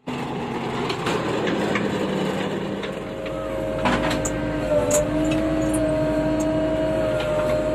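Diesel engine of a JCB backhoe loader running, with a low rumble, a steady whine and a few short knocks.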